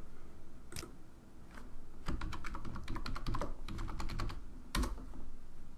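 Typing on a computer keyboard: a single click about a second in, then a quick run of keystrokes from about two seconds in, and one louder stroke near the end.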